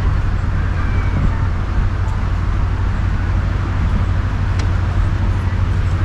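Beach ambience: a steady low rumbling noise, with faint distant voices.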